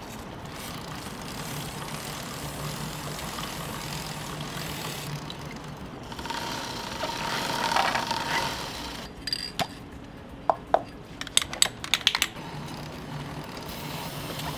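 Aerosol chain cleaner and lube hissing onto a motorcycle drive chain at the rear sprocket, with brush scrubbing on the chain. The hiss grows louder about halfway through, followed by a quick run of sharp clicks and rattles.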